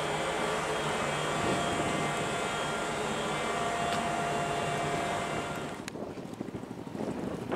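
Steady shipboard machinery hum with several held tones, heard aboard the moored Abukuma-class destroyer escort JS Sendai. About six seconds in it drops away to a fainter, rougher rustle of wind.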